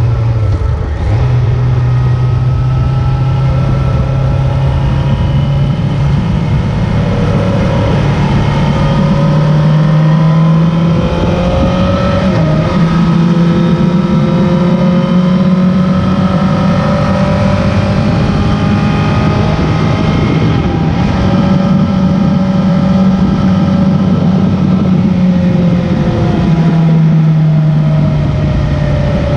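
A vehicle's engine running under way, its pitch steady at first, stepping up about a third of the way in, then dipping and climbing again near the end, over a steady hiss of road noise.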